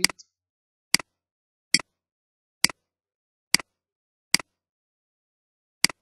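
Computer mouse clicking seven times at uneven intervals of about a second, each click short and sharp.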